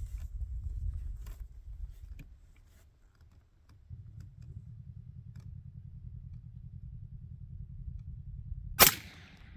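A single shot from a Christensen Arms .338 Lapua Magnum rifle fitted with a C&S Armory MOAB 338 suppressor, a sharp crack with a short ringing tail, near the end. Before the shot there is a low, uneven rumble.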